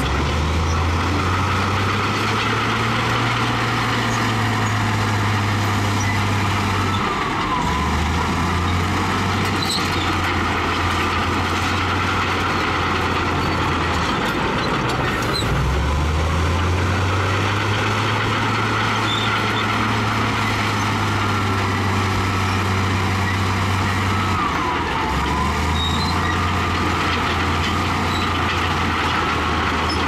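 Heavy diesel earthmoving machinery, most likely a bulldozer, running under load. Its low engine note steps up and down in pitch several times over a steady rumble and clatter.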